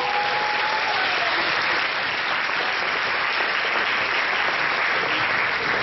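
Hall audience applauding steadily.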